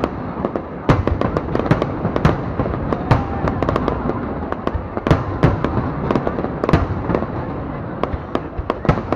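Aerial fireworks going off in a dense display: many sharp, irregular bangs and crackles a second over a continuous rumble.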